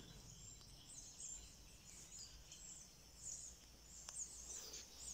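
Small songbirds chirping and calling faintly in the treetops: many short, high chirps scattered throughout, over a low background hush.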